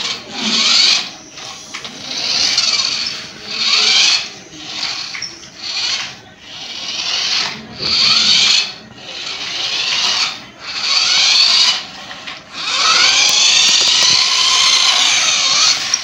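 Toy remote-control car's small electric drive motor and gears whining in short bursts, about once a second, as the throttle is pressed and let go. Near the end there is a longer run of about three seconds. The pitch rises and falls with the speed.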